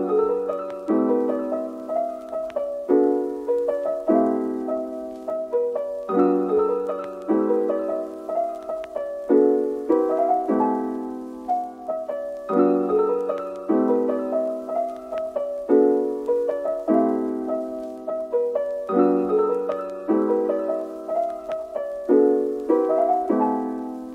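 Background piano music: a calm phrase of struck, fading notes and chords that repeats about every six seconds.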